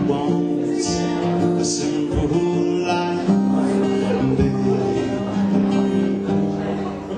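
Acoustic guitar strummed live, chords ringing out in a steady instrumental passage.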